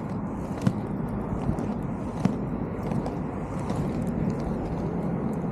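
K2 VO2 S 90 BOA inline skate wheels rolling over rough, cracked blacktop: a steady rolling noise with a few sharp clicks where the wheels hit grit or cracks. Wind buffets the microphone throughout.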